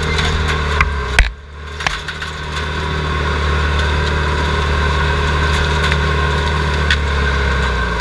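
Skid steer loader's engine running steadily, heard from inside the cab, with the rattle and clicks of the machine. A sharp knock comes about a second in, and the engine sound dips briefly after it before coming back up.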